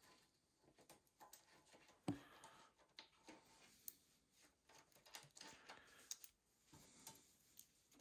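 Near silence with faint scattered clicks and taps of hands handling motorcycle parts, and one sharper knock about two seconds in.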